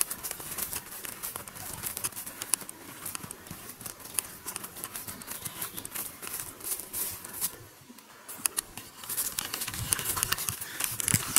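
Footsteps through grass and forest undergrowth, with close rustling and crackling near the microphone. It goes briefly quieter about two-thirds of the way through, then resumes.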